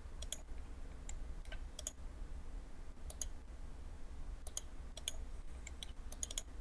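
Computer mouse clicking: a dozen or so irregular clicks, some in quick pairs like double-clicks, over a steady low electrical hum.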